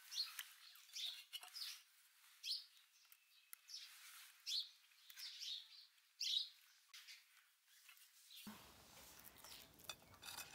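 Small birds chirping in short, high calls that repeat every second or so; faint.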